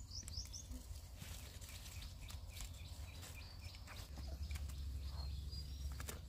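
Outdoor farm ambience: a steady low rumble, getting stronger about four seconds in, with scattered small rustles and clicks and a few short bird chirps near the start.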